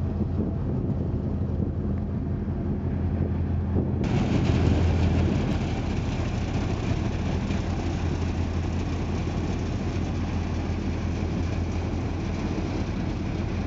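Large passenger ferry's diesel engines running with a steady low drone as the ship manoeuvres alongside the quay.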